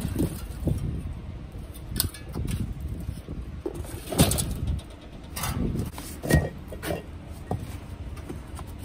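Irregular rustling, scraping and knocking from boxed parts and their packaging being handled, with sharper knocks about two, four and six seconds in.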